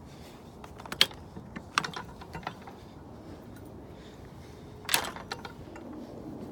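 A few sharp clicks and knocks over a low steady background. The loudest comes about a second in and another strong one about five seconds in, with smaller ticks between.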